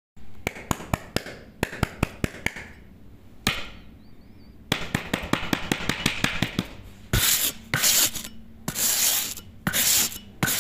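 Small steel trowel working a gritty cement surface: a run of sharp taps of the blade, a single swish, more quick taps, then three longer scraping strokes near the end as the blade is drawn across to smooth it.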